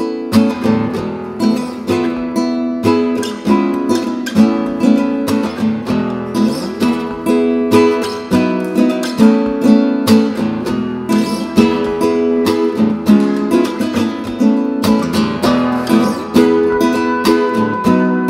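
Acoustic guitar played in a steady rhythm as an instrumental passage, with a trumpet coming in on held notes near the end.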